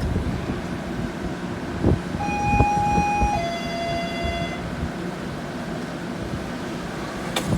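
A two-note electronic chime, a higher tone held about a second and then a lower one for about a second, over the steady rumble of a train standing at the platform and wind on the microphone. A sharp click comes near the end.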